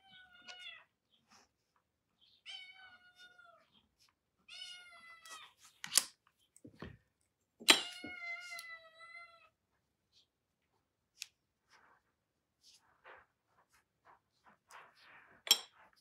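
A cat meowing four times, each meow about a second long and falling slightly in pitch. A few sharp taps come between and after the meows.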